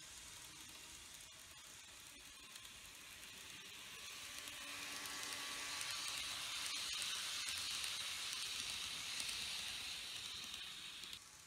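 N-gauge model train (TOMIX E3 series Komachi) running past on its track: a high, even hiss of motor and wheels that swells as it approaches and passes, then cuts off suddenly near the end.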